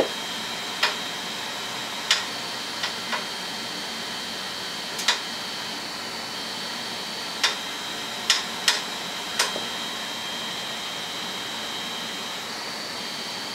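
Anycubic Mega-S's Titan-style extruder stepper motor feeding filament through the hot end during a filament load: a steady high whine over the printer's fan noise. About nine short sharp clicks fall irregularly through it.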